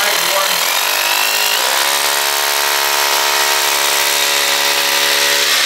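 Corded rotary hammer drill running continuously as it bores into a masonry wall; about two seconds in a steady pitched buzz rises out of the drilling noise and holds.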